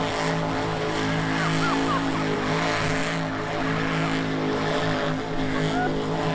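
Monster truck engine held at steady high revs under heavy throttle while the truck spins a donut in deep mud.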